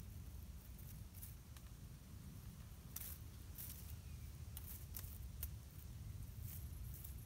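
Faint, scattered soft ticks and rustles of a small rodent feeding and moving through dry leaf litter, over a steady low rumble.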